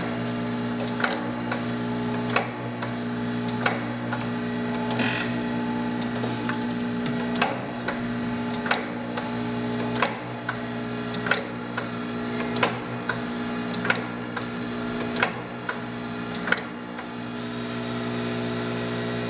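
Mitsui MSG-250H-2AH hydraulic surface grinder running with its table feed engaged: a steady hum, with a sharp click about every 1.3 seconds at each end of the reciprocating table's stroke.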